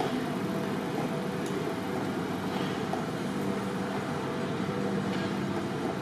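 Steady city street noise: a low hum of vehicle engines and traffic, with a few faint clicks.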